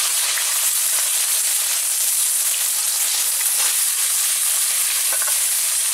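Potato and brinjal pieces, coated in salt and turmeric, sizzling in hot oil with panch phoron: a steady, even hiss of frying.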